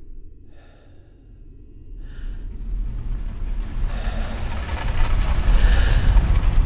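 Slow-motion race-car crash sound design: a deep, muffled rumble that swells from near quiet over several seconds, with a thin high ringing tone coming in about halfway through and growing louder.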